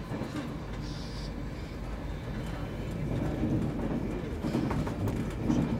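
Inside a moving passenger train on the East Coast main line: the carriage's steady running rumble, growing a little louder after about three seconds, with a few faint clicks near the end.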